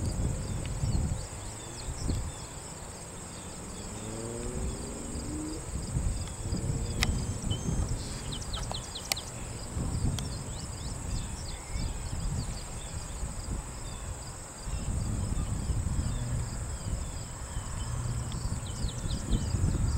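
Steady high-pitched drone of insects in summer grass, with gusts of low rumble from wind on the microphone.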